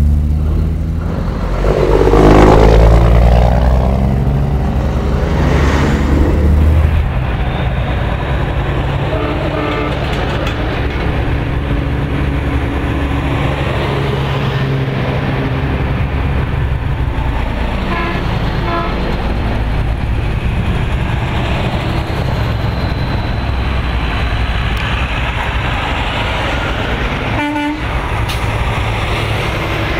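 Semi-truck diesel engines rumbling as big rigs drive past one after another, the loudest passing close in the first few seconds. A few short horn toots sound along the way.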